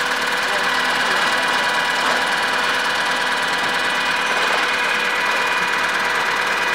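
Tractor engine running steadily, an even mechanical hum with no revving or changes.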